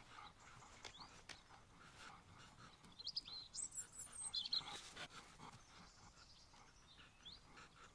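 Faint high bird chirps, clustered a few seconds in and once more near the end, over near-silent room tone with a few faint clicks.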